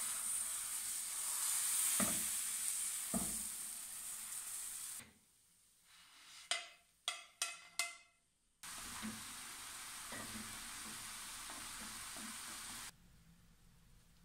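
Thin milk-pancake batter sizzling in a hot frying pan, with two knocks in the first few seconds. The sizzle breaks off for a few seconds while four short ringing clicks sound, comes back, and then cuts off abruptly shortly before the end.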